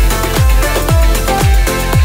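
Electronic dance music with a steady, deep kick drum beating about twice a second under sustained synth tones.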